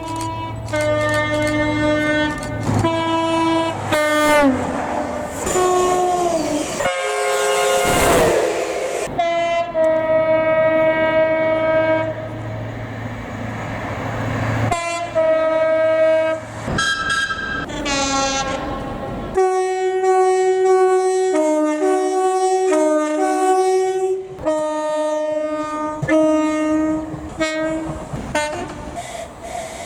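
British train horns sounding in a string of blasts that alternate between a high and a low note. A few seconds in, one horn drops in pitch as a train passes at speed, followed by the rush of the train going by. In the second half the notes change quickly in a tune-like run.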